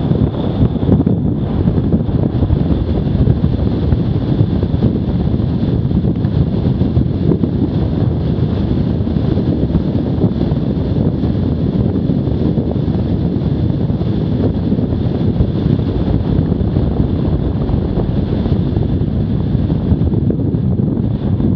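Wind buffeting the microphone of a bicycle-mounted camera on a fast road descent: a loud, steady, rumbling rush.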